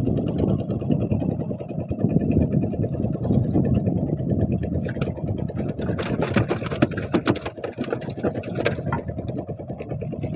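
Small boat engine running steadily. About six to nine seconds in, a run of sharp clicks and rattles sounds over it.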